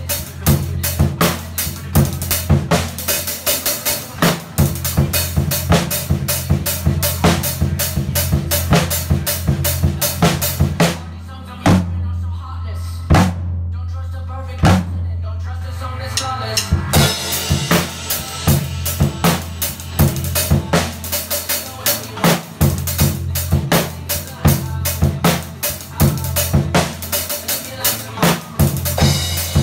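Drum kit played along to the song: quick kick, snare and rimshot strokes over a steady bass line. About a third of the way in the drumming drops to a few scattered hits for around six seconds, then comes back in with cymbals ringing.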